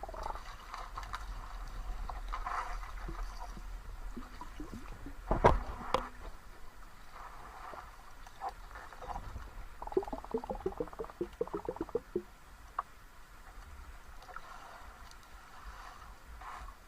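Mountain stream water flowing and gurgling. A sharp knock comes about five and a half seconds in, and a rapid run of short pulses follows around ten to twelve seconds in.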